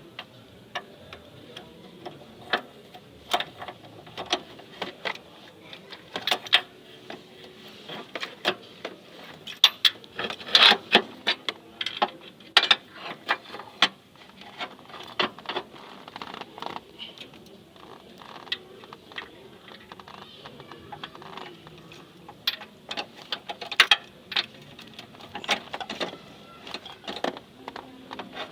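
Hand tools clicking and clinking on metal in irregular sharp knocks, several a second, loudest about ten seconds in.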